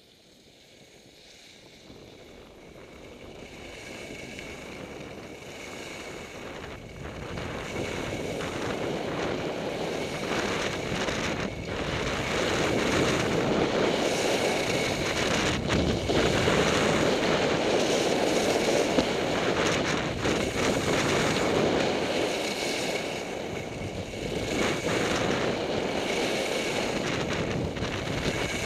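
Wind rushing over a Contour HD action camera's microphone as a skier speeds down a groomed run. The rush grows over the first dozen seconds, then stays loud, dipping briefly a few seconds before the end.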